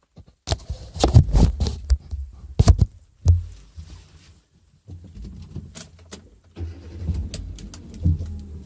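Knocks and clatter with keys jangling, then a Hyundai Getz engine running with a low steady rumble from about five seconds in, getting louder a little later.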